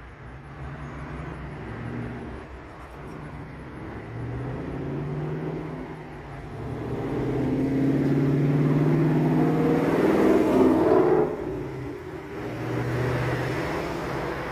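Road traffic: a motor vehicle passing, its engine and road noise building to loudest about ten seconds in and falling away suddenly, with a smaller swell near the end.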